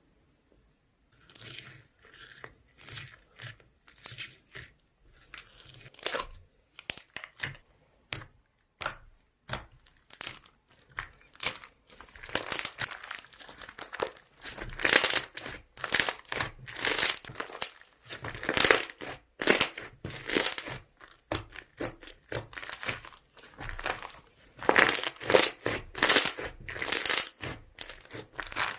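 Slime being squeezed and stretched by hand, making a run of short sticky squishing noises. It starts about a second in and gets busier and louder about halfway through.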